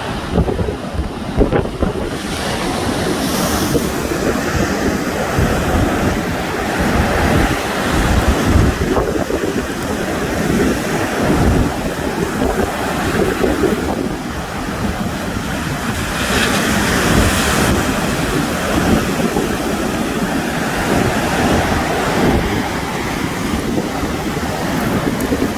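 Sea waves washing on the shore, with wind buffeting the microphone. One wash swells louder about two-thirds of the way through.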